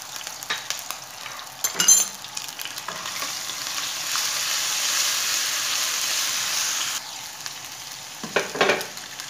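Ginger-garlic paste sizzling in hot oil in a non-stick wok while a spatula stirs it. The sizzle swells for a few seconds in the middle and drops back about seven seconds in, with a sharp knock about two seconds in and a short scrape near the end.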